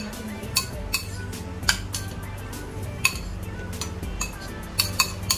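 A metal spoon clinking and scraping against a ceramic bowl while stirring a salad of lettuce, cucumber and tomato with mayonnaise: sharp clinks at uneven intervals, several close together near the end. Soft background music plays underneath.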